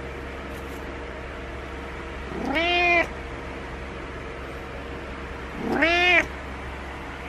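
Domestic cat meowing twice, about three seconds apart. Each meow rises in pitch, then holds before breaking off abruptly. These are insistent wake-up meows, asking its owner to get out of bed.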